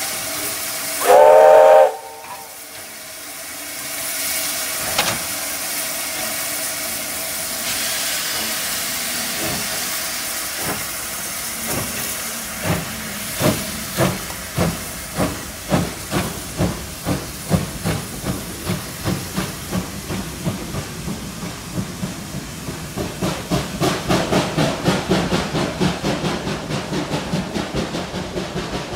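S160 2-8-0 steam locomotive giving one short, loud whistle blast about a second in, over steady steam hissing. From about twelve seconds in it pulls away, its exhaust beats quickening as it gets under way.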